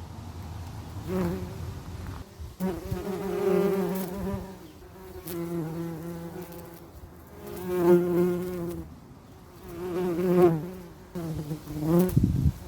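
Bees buzzing. The hum swells and fades several times as they fly close past the microphone, with its pitch wavering slightly on each pass.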